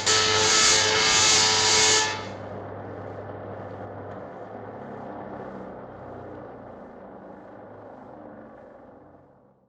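Old cartoon electricity sound effect: a loud electric buzz that drops about two seconds in to a lower, quieter hum, which fades away over several seconds.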